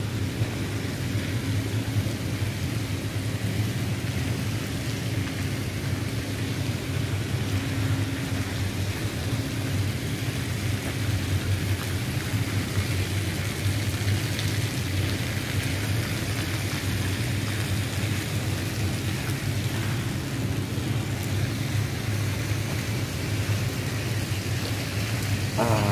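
Steady low machinery drone that does not change, with an even hiss over it.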